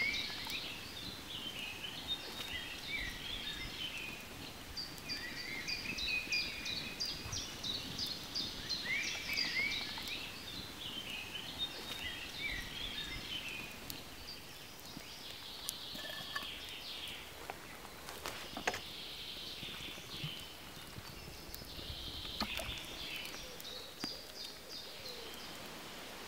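Small songbirds singing, with quick chirps and short trills that are busiest in the first half and thin out later. A few sharp clicks or taps sound between them in the second half.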